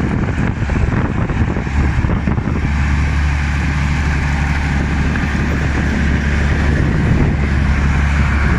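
Loud, steady low rumble of a running engine under a rushing noise.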